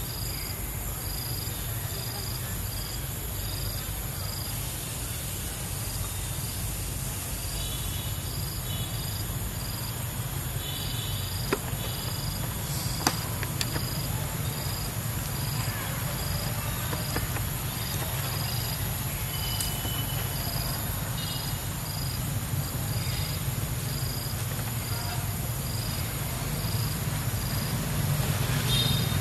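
Forest insects chirping: a regular high chirp repeating about twice a second over a steady high buzz, with a low rumble underneath and a couple of brief clicks around the middle.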